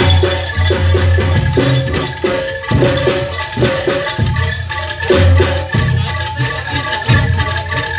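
Gamelan-style music accompanying a jaranan horse dance: mallet-struck metal percussion playing a steady repeating pattern over drum strokes.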